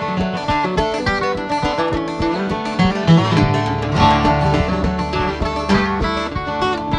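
Acoustic guitar and a mandolin-family instrument playing an instrumental passage of a Celtic folk tune together, with many quick plucked notes. A low held bass note sounds for a couple of seconds about halfway through.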